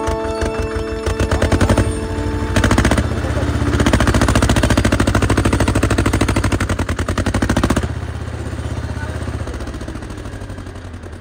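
Mini tractor's engine running hard under load with a rapid, even knocking beat. It gets louder about two and a half seconds in, drops back at about eight seconds and then fades.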